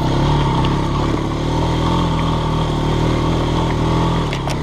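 ATV (four-wheeler) engine running steadily under load as it climbs a muddy hill. A couple of sharp clicks come near the end.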